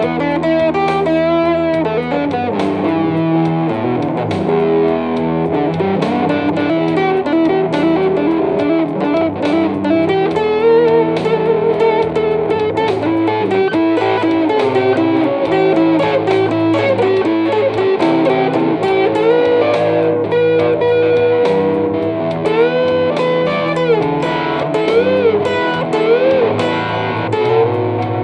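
Telecaster-style electric guitar played through a small combo amp: a blues lead line of bent notes with vibrato over a running bass part.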